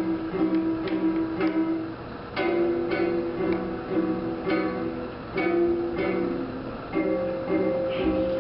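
A child plays a small acoustic guitar, plucking a simple tune note by note. The notes come in short phrases, with brief pauses about two seconds in and again a little past the middle.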